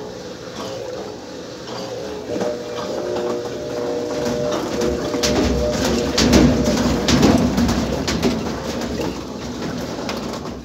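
Top-loading washing machine spinning with a comforter bunched to one side, its tub out of balance: a rising rumble with a run of knocks and bangs that peaks about six to seven seconds in as the machine jumps, then eases. Steady wavering tones sound through the first half.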